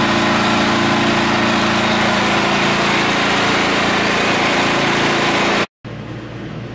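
Harbor Freight Predator 8750 inverter generator's engine running at a steady speed. Its hum cuts off abruptly about five and a half seconds in and gives way to a quieter steady hum.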